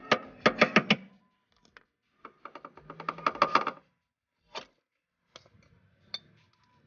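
Hammer blows on a Honda Civic's front suspension, a sharp metallic knocking. It comes as a quick run of about six strikes, then a faster flurry of a dozen or so about two to four seconds in, then a few single knocks.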